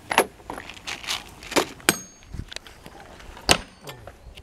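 Tools and metal hardware being handled: a handful of separate sharp knocks and clinks, one with a short metallic ring.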